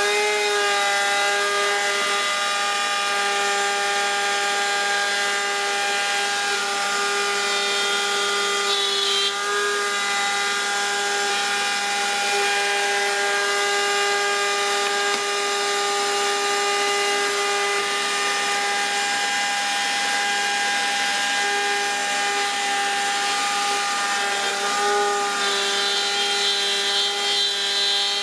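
Router mounted in a router table, spinning a keyhole bit at full speed: a steady high whine. Near the end a board is pushed onto the bit to cut a keyhole slot, and the whine wavers slightly.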